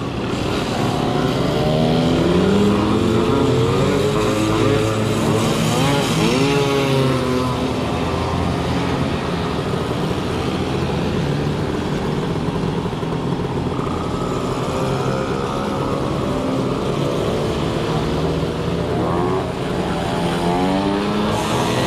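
Small two-stroke moped engines running, their pitch rising as they accelerate a few seconds in and again near the end.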